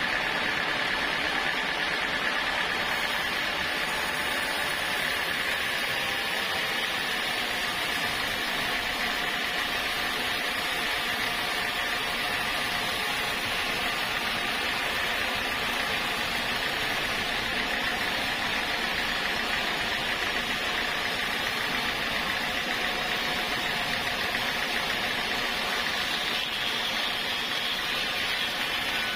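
Sawmill saw running steadily, a continuous machine noise with a high whine that fades about halfway through.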